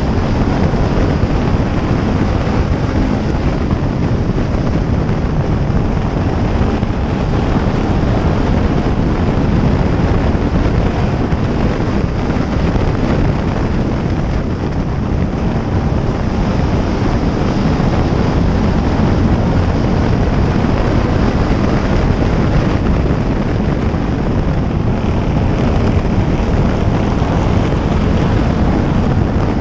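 Pure stock race car's engine running hard at racing speed, heard on board along with wind and road noise. It holds a steady loud note with a brief slight easing about halfway through.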